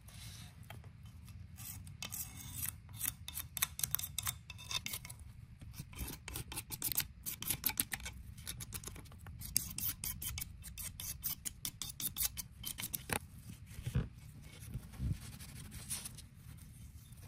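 A razor blade scraping old gasket sealant off the machined metal gasket surface of a motorbike gearbox case, in quick bursts of short strokes, with a couple of knocks near the end.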